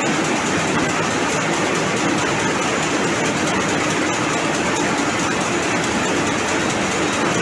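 High-speed rapier jacquard looms running: a loud, steady, fast mechanical clatter that does not let up.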